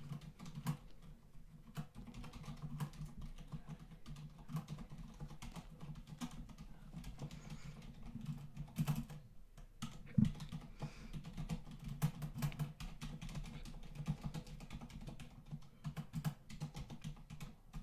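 Typing on a computer keyboard: irregular runs of keystroke clicks, close to the microphone.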